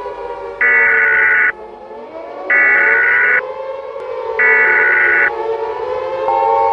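Emergency Alert System SAME header: three loud bursts of digital data tones, each just under a second long and about a second apart. They play over a siren wail that slowly rises and falls. Near the end the steady EAS attention tone begins.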